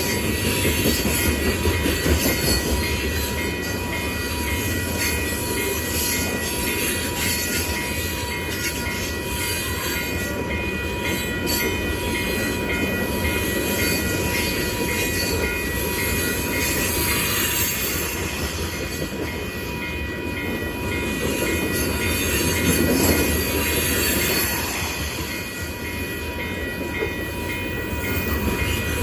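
Freight cars of a long manifest train rolling past, a steady rumble of steel wheels on rail with thin, steady high-pitched tones over it that swell a little near the end.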